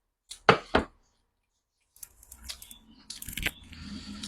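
Eating and utensil sounds: two sharp knocks close together about half a second in, then from about two seconds in soft, irregular crackling and clicking.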